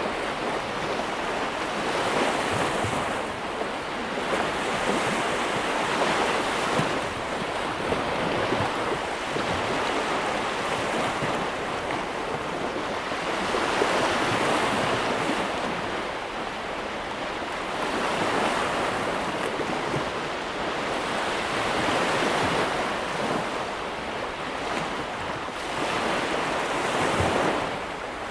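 Ocean waves breaking and washing on a beach, a steady rush of surf that swells and eases every few seconds, with some wind on the microphone.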